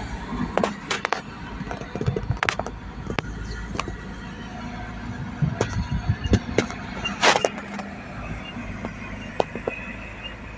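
Heavy diesel machinery running steadily, with sharp knocks and clanks at irregular intervals and one longer scraping clatter a little after the middle.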